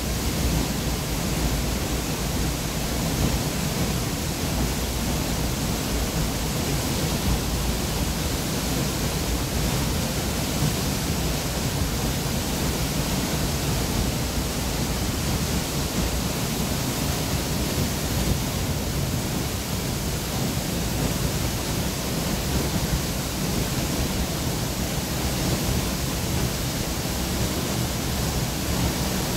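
Waterfall pouring into a rocky plunge pool: a steady, loud rushing of falling water.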